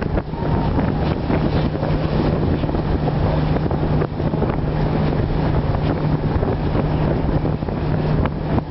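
Moored boat's engine running with a steady low hum, under wind buffeting the microphone, with a couple of short knocks about four seconds in and near the end.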